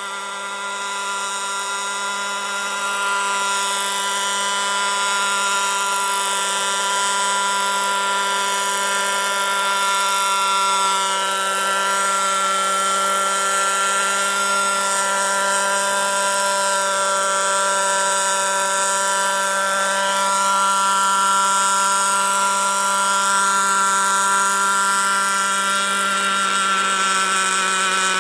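A radio-controlled scale model helicopter of a Sikorsky HO3S-1G, with a combustion engine, running with its main and tail rotors turning. The engine and rotors make a steady, high whine of many tones. It grows louder over the first few seconds as the model comes in, then holds steady as it hovers low, with slight shifts in pitch.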